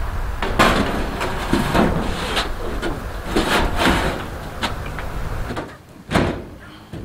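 Thin sheet-metal roof panel being set down on a van's steel cab roof and shifted into place: a run of knocks, bangs and scrapes of metal on metal, ending in one sharp knock about six seconds in.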